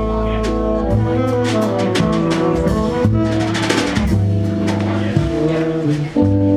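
A jazz quintet playing a Brazilian jazz arrangement: held horn notes over a low bass line, with drum kit and cymbal strokes throughout.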